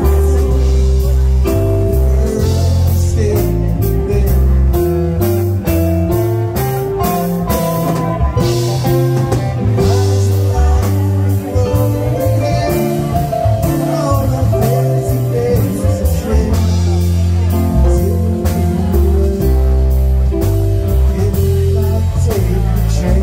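Live band performance: male and female voices singing together over electric guitar and keyboard, with a steady, full low end.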